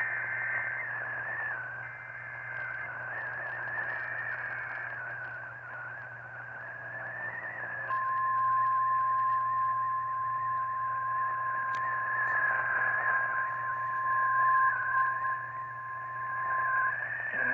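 NOAA Weather Radio alert through a weak, hissy radio signal: three short data bursts of a SAME header, then the steady 1050 Hz warning alarm tone held for about nine seconds, signalling that a warning broadcast follows.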